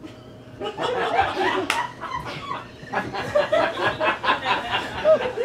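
Theatre audience laughing. The laughter starts about half a second in and rises and falls in waves, with one sharp click about a second later.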